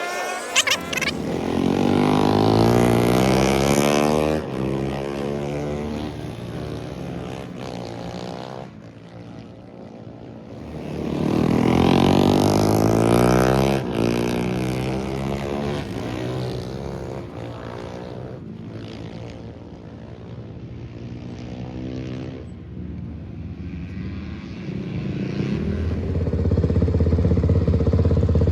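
Race motorcycle riding laps: its engine swells up and passes twice, the pitch sweeping through each pass, then runs close and steady near the end.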